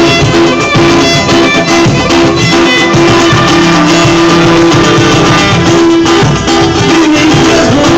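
Loud live instrumental street music played by buskers, with long held melody notes over a busy accompaniment.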